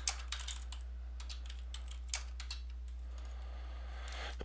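Typing on a computer keyboard: irregular keystrokes, a quick cluster at first and then scattered taps, over a steady low electrical hum.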